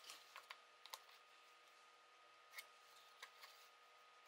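Near silence with a few faint, short clicks and scratches: a pencil marking a small piece of wood and the wood being handled on a cutting mat.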